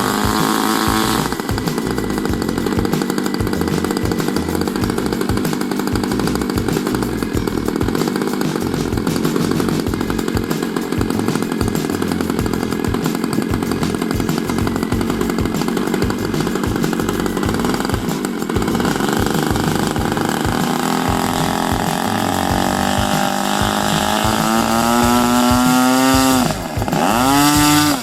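Radio-controlled Edge 540 model aerobatic plane's small engine running at high power, steady at first, then climbing in pitch over the last several seconds, with two quick swoops in pitch and loudness near the end as the plane passes close by.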